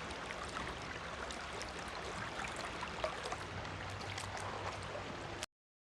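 Faint, steady rush of flowing river water with scattered small ticks over it, cutting off suddenly near the end.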